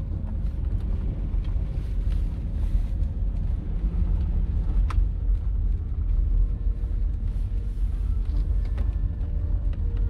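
Strong wind buffeting the microphone: a heavy, constantly fluctuating low rumble, with one sharp click about five seconds in.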